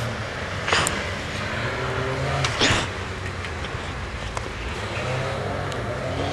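Handling noise of backpack straps and nylon gear close to a helmet-mounted microphone: a few brief brushes that fall in pitch and some small plastic buckle clicks, over a steady low engine hum.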